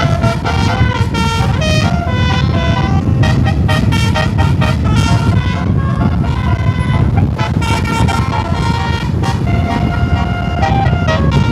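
Bus telolet horn playing a quick tune of short stepped notes, over the steady low rumble of the moving bus.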